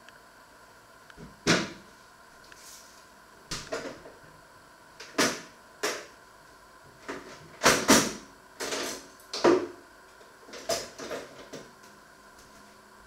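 Kitchen clatter: about a dozen irregular knocks and clanks of things being handled and set down, some ringing briefly, loudest about a second and a half in and again around eight seconds in.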